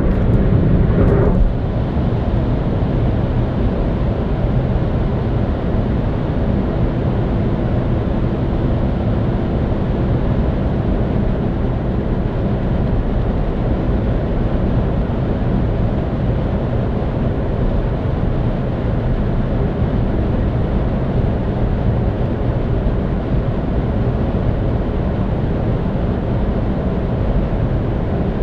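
Steady road and tyre noise with engine hum inside a car cruising at highway speed. It is a little louder for the first second and a half, then runs evenly.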